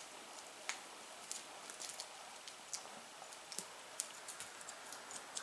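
Faint scattered light clicks and scratches at irregular spacing over a steady low hiss: a cat's claws catching and ticking on a blanket and toy during play.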